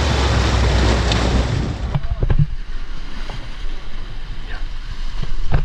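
Sea surf washing against rocks, with heavy wind rumble on the microphone. About two seconds in it drops to quieter sloshing water with a few short knocks.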